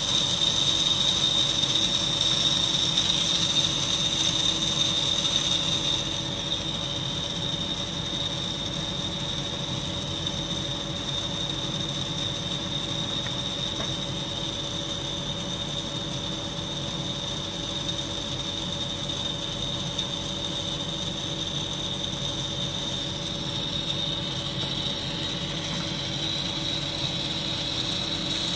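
The Milwaukee M18 wet/dry vacuum's electric motor running slowly on about 3 volts from a bench supply: a steady hum with a high whine, a little quieter from about six seconds in. The owner puts the bad noise down to a failing front bearing or possibly a bushing in the front of the motor.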